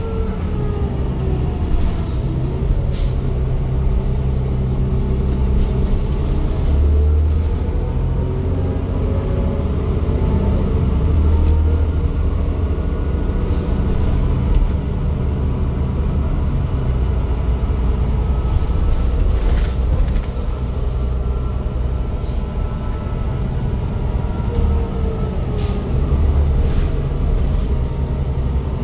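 Cabin sound of a New Flyer D40LFR diesel transit bus under way: steady engine drone and road rumble from its Cummins ISL9, with a faint whine that slides in pitch near the start and again near the end, and a few brief rattles.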